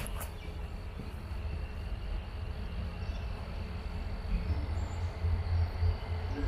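Woodland ambience: a low, uneven rumble with a faint steady insect drone above it and a few faint bird chirps in the second half.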